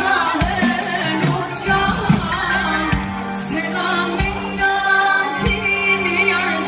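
Live Armenian pop song: a woman singing into a microphone, backed by a drum kit and electric bass, with steady drum hits throughout.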